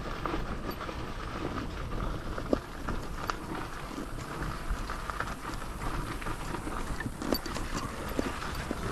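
Royal Enfield Himalayan's single-cylinder engine running at low revs as the motorcycle rolls down a loose, rocky dirt trail, with tyres crunching over stones and scattered knocks and rattles from the ride.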